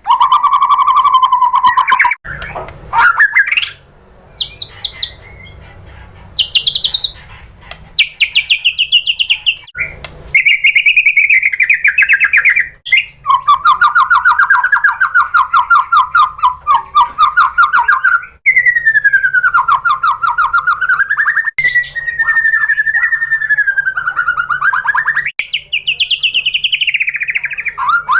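White-rumped shama singing a run of long, rapid trilled phrases, each one a few seconds long and sliding up and down in pitch, with short pauses between them.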